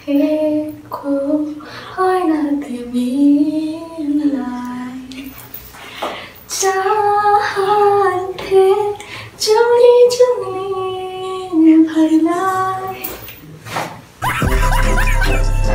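Women singing unaccompanied in long, held, wavering notes, breaking into laughter partway through. About fourteen seconds in, loud music with a heavy bass beat cuts in abruptly.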